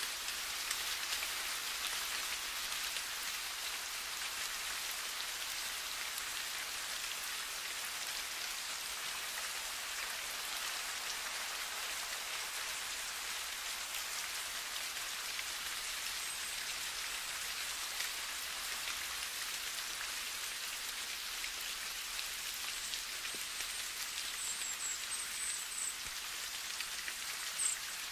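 Steady rain, an even hiss without a break, with a few faint high chirps near the end.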